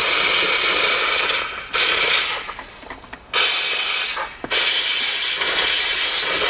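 Steam cleaner jet hissing in about four bursts, cutting off and restarting, as it blasts grit, rust and old oil out of the inside of a sewing machine.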